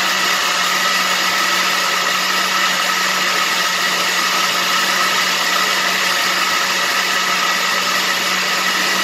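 Countertop blender running steadily, grinding softened rice and water into a milky mix for horchata, with a steady motor hum under the whirring.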